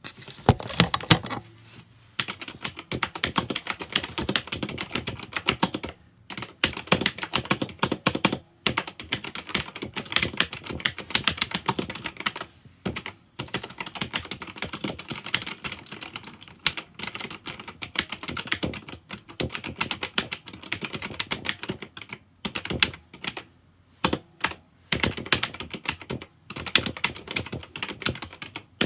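Typing on a computer keyboard: fast runs of keystrokes clattering, broken every few seconds by brief pauses.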